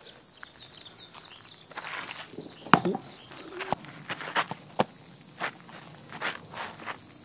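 Footsteps scuffing and shifting on a dirt ground, with a sharp knock about three seconds in and a few lighter clicks after it, over a steady high buzz of insects.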